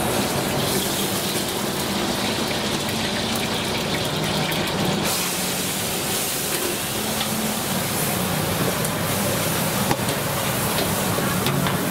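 Steady hissing noise over the background hum of a busy street-food market, with one sharp click near the end.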